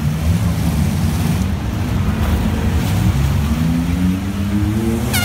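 Demolition derby car engines running loud, with one engine revving and climbing in pitch over the last two seconds.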